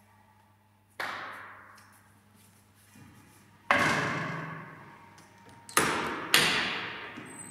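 Tyre changer being worked by hand: four sharp knocks, each ringing out briefly, as the tyre is handled on the alloy rim and the mounting head is positioned. One comes about a second in, one about halfway, and two close together near the end.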